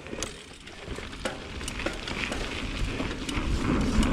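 Bicycle rolling down a dirt trail: tyre rumble on the dirt and wind on the microphone, growing steadily louder as it picks up speed, with scattered sharp clicks and rattles from the bike and gravel.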